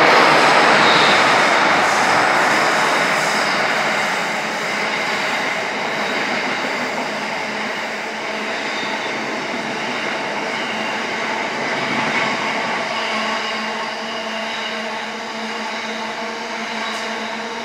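Class 60 diesel locomotive passing close by, loudest in the first few seconds. It is followed by a long rake of covered hopper wagons rolling past with steady wheel-on-rail noise and a faint thin squeal from the wheels.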